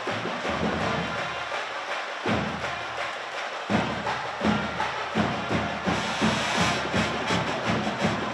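High school pep band playing: sousaphones, trumpets, trombones and saxophones over a steady beat of bass drums and snare.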